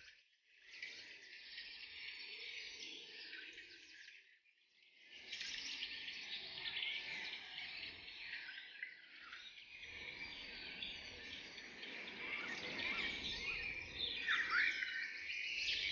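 Dense forest bird chorus: many birds chirping and trilling over one another at once, dropping away briefly twice, near the start and about four to five seconds in.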